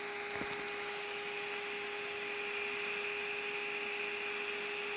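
Small 12-volt cooling fan running steadily: a constant hum with an even whirring hiss. A faint tick about half a second in.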